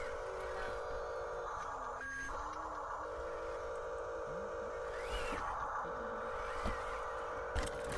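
Small electric motors and plastic gearboxes of radio-controlled construction toys whining steadily, one tone holding level while a second tone wavers up and down as the motor speed changes, with a couple of knocks near the end.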